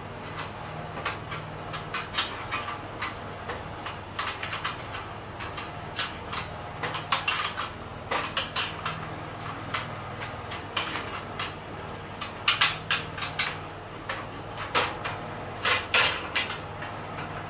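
Irregular metallic clinks, taps and rattles of a hand tool and fittings on the steel frame of an industrial sewing machine table stand during assembly, coming in clusters, over a steady low hum.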